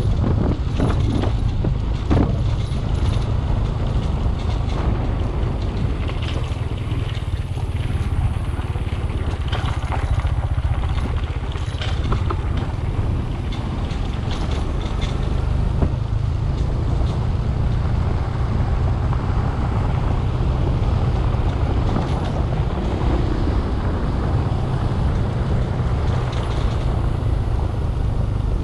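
Vehicle driving over a rough laterite dirt track: a steady low rumble with scattered knocks and rattles.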